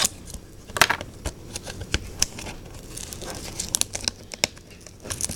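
Packaging of a Yu-Gi-Oh! Duel Power trading card box being torn open and crinkled: a run of sharp crackles and rips.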